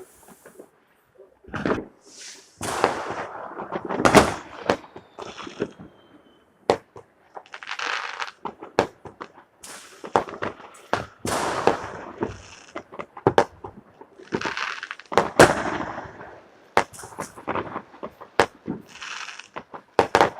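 New Year's Eve fireworks going off: many sharp bangs of firecrackers and rockets at irregular intervals, with longer noisy bursts between them.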